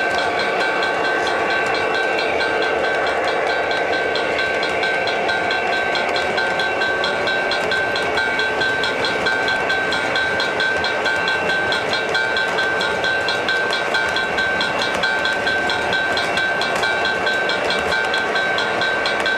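O gauge three-rail model freight train rolling steadily past, the wheels of its hopper cars clattering over the track joints, with a steady high whine. The run stays even, with no stops or sudden noises.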